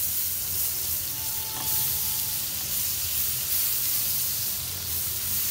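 Butter melting and sizzling in a hot nonstick frying pan, stirred with a silicone spatula: a steady frying hiss.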